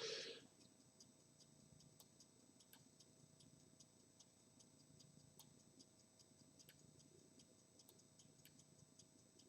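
Near silence: faint room tone and a low hum, with faint scattered clicks at irregular intervals and a brief breath-like hiss at the very start.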